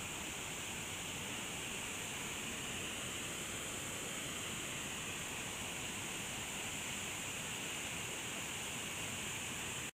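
Steady rush of a creek and small waterfall, an even hiss with no other sounds in it, cutting off abruptly near the end.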